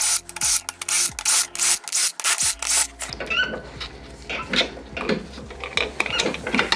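Cordless power driver running in short, loud bursts about three a second as it undoes bolts in a Toyota 1KZ engine block. After about three seconds it stops, leaving lighter metal clinks and scraping.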